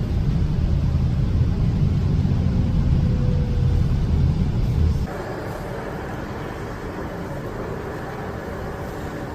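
Low rumble of a moving public-transport vehicle heard from inside, which cuts off abruptly about five seconds in. A quieter, lighter hum follows.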